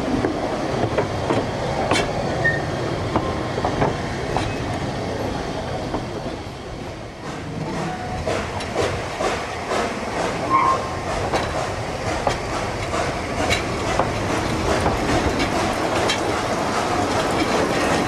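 Narrow-gauge railway carriage running along the track: a steady rumble with irregular sharp clicks of the wheels over rail joints, heard from an open carriage window.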